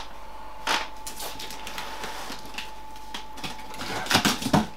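Cardboard shipping box and packing tape being handled: scattered clicks, scrapes and rustles, with a denser cluster of them near the end.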